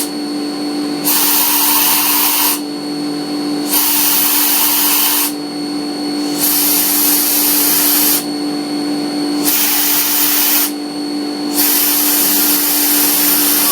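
CNC mill spindle running with a steady hum while a loud hiss comes on five times, each for about a second and a half: the air blast and the ball end mill cutting a row of decorative dots into a titanium pen tube.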